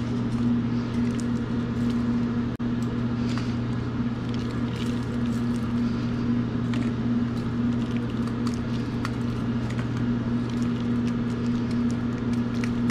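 Steady hum of restaurant kitchen machinery, with a low tone and a second tone above it. Faint, scattered crackles come from dried red chilies being split open by hand and shaken free of their seeds.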